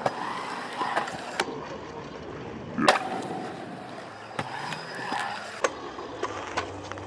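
Stunt scooter wheels rolling on concrete skatepark bowl surfaces, broken by several sharp clacks of the scooter landing and striking the concrete, the loudest about three seconds in.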